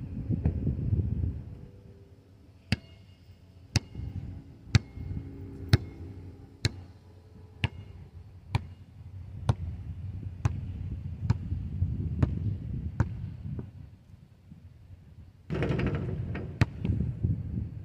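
Basketball bounced on asphalt in a steady dribble, a sharp slap about once a second that quickens a little toward the end. Wind rumbles on the microphone at the start and again near the end.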